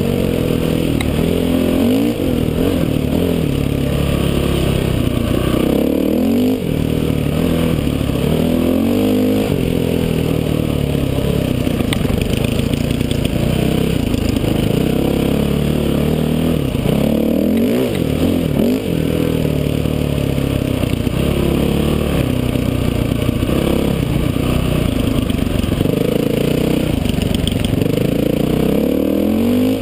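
Off-road motorcycle engine running hard along a dirt trail, its pitch repeatedly rising and falling every few seconds as the throttle is opened and shut.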